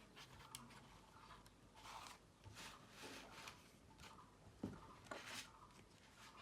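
Near silence with faint rustling and a few light clicks, the sharpest about two thirds of the way in.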